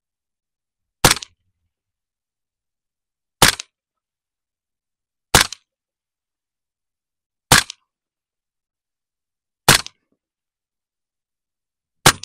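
Six suppressed shots of subsonic 300 Blackout from a 7.5-inch AR pistol fitted with a 3D-printed carbon-fibre nylon (PA6-CF) suppressor, fired about two seconds apart. Each is a short sharp report that dies away quickly.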